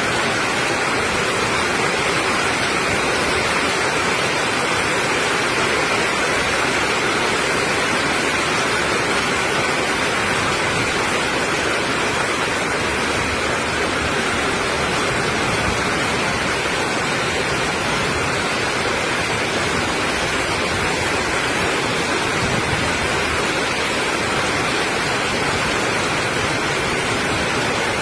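Torrential rain pouring down, with floodwater rushing along the street. The two blend into one steady, loud rush of noise.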